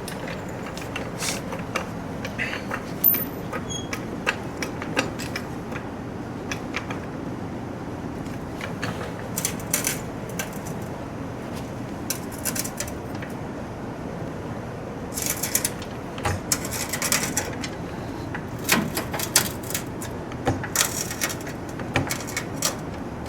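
Scattered clicks, clinks and short rattles of metal parts and tools being handled, coming in quick clusters in the second half, over a steady background hum.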